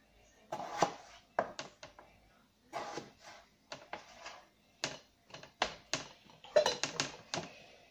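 Chef's knife cutting potatoes into wedges on a plastic cutting board: a run of irregular sharp knocks and taps as the blade hits the board and the pieces are handled, with a quicker cluster of knocks near the end as wedges go into a steel bowl.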